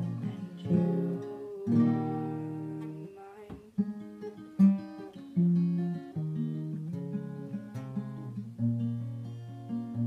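Solo acoustic guitar, capoed, playing an instrumental passage of picked and strummed chords that ring out, with a brief pause about three and a half seconds in.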